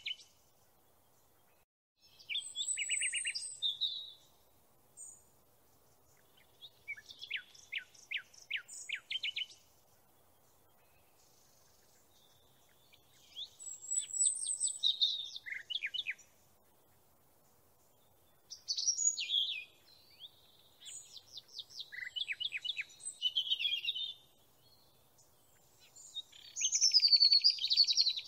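Songbird singing in short phrases of rapid, high trills and chirps, about six phrases separated by pauses of a second or two.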